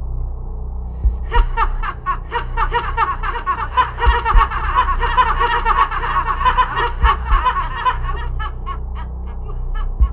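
A boy laughing in a long, rapid cackle that starts about a second in and thins out near the end, over a low steady musical drone.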